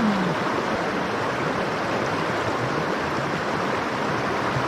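Mountain stream flowing steadily, an even rush of water.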